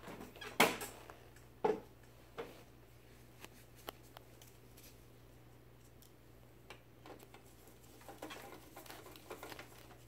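Screwdriver and plastic printer parts being handled: a few sharp clicks and knocks in the first four seconds, the loudest about half a second in. Then faint, scattered ticking as a screwdriver works a screw in the printer's frame.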